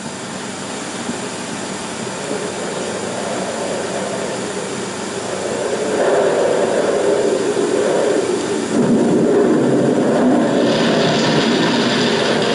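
Storm wind sound effect on an old optical film soundtrack: a steady, wavering rush of wind that grows louder about six seconds in and again near nine seconds, with a hissier edge near the end.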